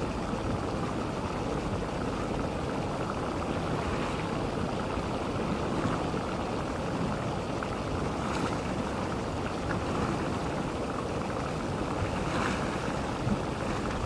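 Geothermal steam vents venting with a steady, low rushing noise. Two brief, fainter hisses come through about eight and twelve seconds in.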